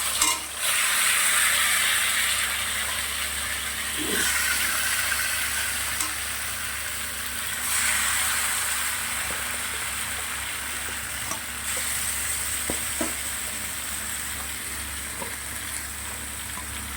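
Marinated chicken frying in hot oil in a pan, a steady sizzle that swells a few times as it is stirred and slowly dies down, with a few light clicks of the stirring spoon.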